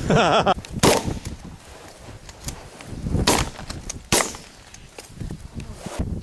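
Three shotgun shots at passing ducks: one about a second in, then two about a second apart around three and four seconds in. A brief wavering call sounds just before the first shot.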